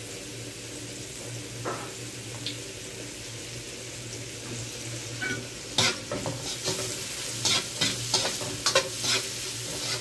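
Shrimp and onions sizzling in a hot wok, with a steady low hum underneath. About six seconds in, a spatula starts stirring, scraping and clacking against the wok.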